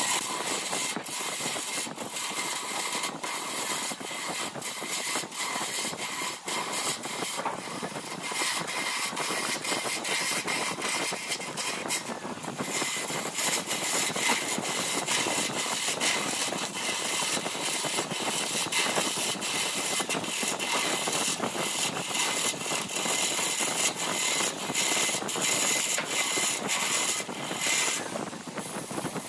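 Wood lathe running while a turning tool cuts a spinning wood blank: a steady scraping hiss of the cut, broken by many short irregular clicks as shavings fly off.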